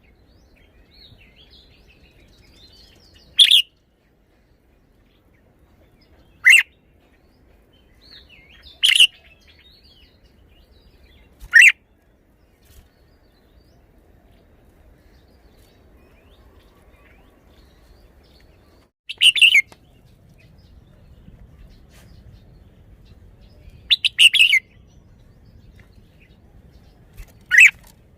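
Red-whiskered bulbul singing short, loud, sharp phrases, about seven in all, a few seconds apart, with faint softer chirps in between.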